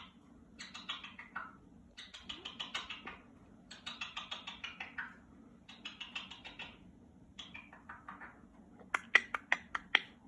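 A talking pet bird making rapid clicking chatter in about five bursts of roughly a second each, then a few sharp, louder clicks near the end.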